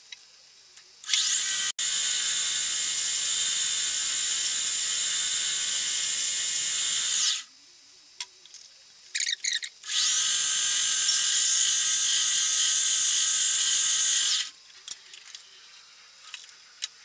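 Metal lathe running under power twice, for about six seconds and then about four. Each run is a steady high-pitched motor and gear whine that winds up at the start and cuts off sharply. Short whirs and a few clicks come between the runs and near the end.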